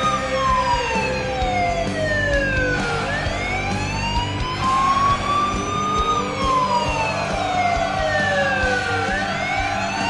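A police-style wailing siren used as an arena goal siren, sliding slowly down in pitch and back up again about every six seconds, sounding to celebrate a home goal.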